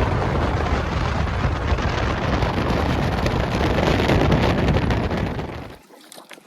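Heavy wind buffeting the microphone over the low rumble of a fishing boat running at speed, cutting off abruptly near the end.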